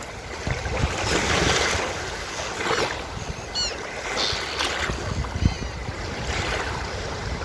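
Surf washing onto a beach, with waves surging in several times, and a few short gull calls around the middle.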